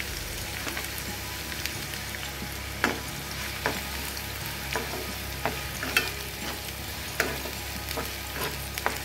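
Chopped onions sizzling in hot oil in a nonstick frying pan, with a spoon stirring through them that adds irregular clicks and scrapes against the pan.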